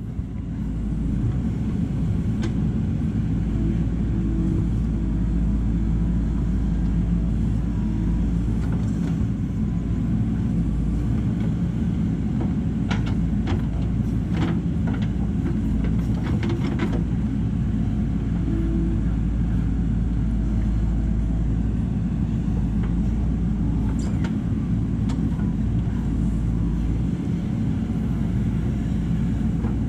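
JCB backhoe loader's diesel engine running steadily, with a cluster of sharp metallic knocks about halfway through.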